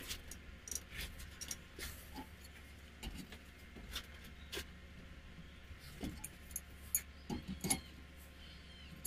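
Forged steel keyrings being handled, clinking and clicking against each other at irregular intervals, with a cluster of clinks near the end, over a steady low hum.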